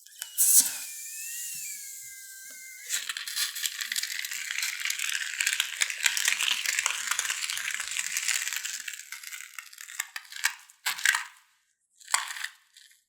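Slime being squeezed and worked by hand, crackling and squishing for several seconds. It opens with a wavering squeak lasting about three seconds, and two short squishes follow near the end.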